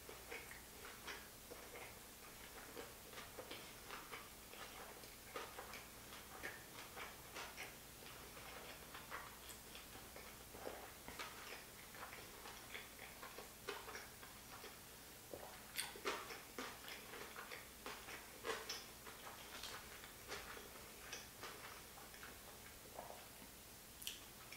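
A person chewing a large, whole-bite sushi roll with the mouth closed: faint, irregular clicks and smacks from the mouth.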